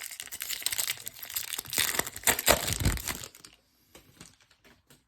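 Foil wrapper of a trading card pack crinkling as it is torn open by hand, a dense crackle for about three and a half seconds that is loudest near the middle, then only a few faint ticks.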